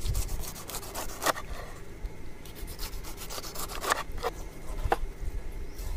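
A large knife cutting through a pineapple's tough, knobbly rind in several separate scraping strokes.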